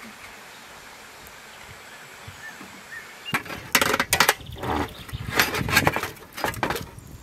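Quiet outdoor ambience, then from about three seconds in a metal spatula scraping and clinking against the steel grill pan and the charcoal-covered tray lying on top, with the coals shifting.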